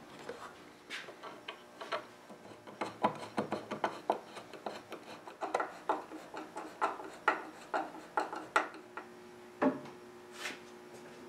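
Hand screwdriver turning wood screws into a mahogany table frame: a fast, uneven run of creaking, scraping clicks as the screws bite into the wood. Near the end come two louder wooden knocks as the table is handled.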